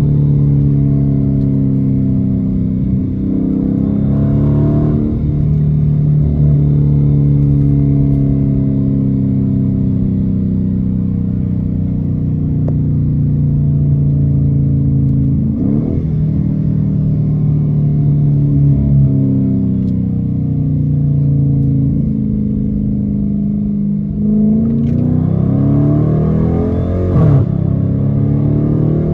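Straight-piped 2016 Dodge Challenger R/T's 5.7-litre HEMI V8, heard from inside the cabin while driving, its exhaust note drifting up and down in pitch. There are quick, sharp rev sweeps about halfway through and near the end, as gears are changed with the paddle shifters, and the engine pulls harder over the last few seconds.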